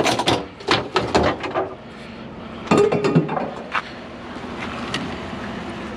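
Loose metal scrap pieces knocking and clinking together as they are handled and sorted, in two quick clusters of clatter with a few single knocks after, over a steady low hum.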